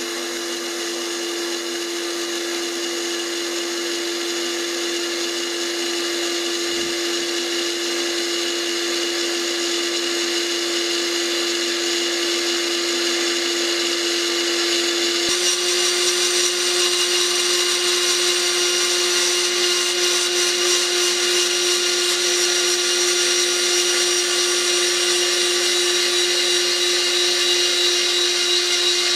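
Small bench milling machine's motor and spindle running steadily at high speed, a tiny end mill cutting lengthwise along a model rail profile as the table is cranked. About halfway the pitch steps up slightly.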